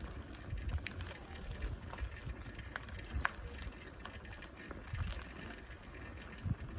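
A bicycle riding over a rough dirt and stone path, with tyres crunching and scattered clicks and rattles from the bike, and wind rumbling on the microphone.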